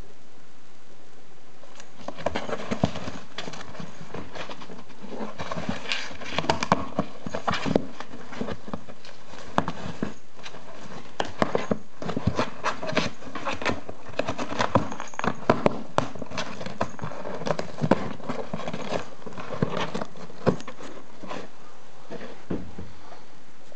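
Cat gnawing and clawing at corrugated cardboard from inside a box, the cardboard crackling and tearing in quick, irregular bites. It starts in earnest about two seconds in.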